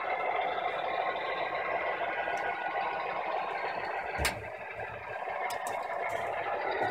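O gauge model train running past: a steady diesel engine sound from the Wheeling & Lake Erie GP35 locomotive's sound system, mixed with its cars' wheels rolling on three-rail track. One sharp click comes about four seconds in.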